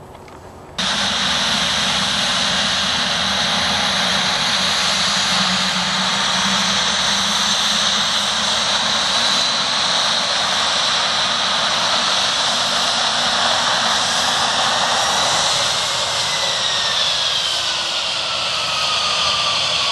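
Three-engine Dassault Falcon 7X business jet taxiing close by: its turbofans run with a loud, steady rush and a high whine. In the last few seconds the whine slides down in pitch as the jet moves past.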